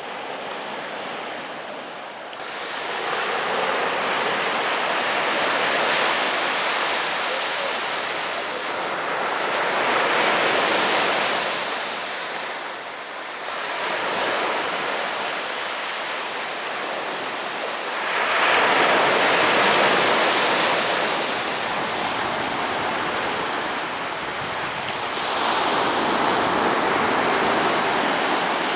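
Ocean waves breaking and washing onto a beach, in about five swelling surges with short lulls between them.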